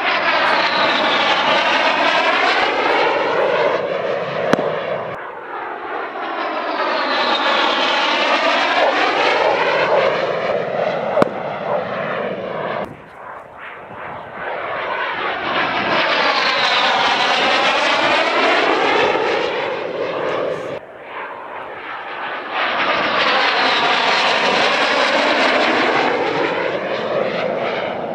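Military jet passing low overhead again and again: about four long swells of jet engine noise, each building and fading over several seconds with a sweeping, whooshing change in tone.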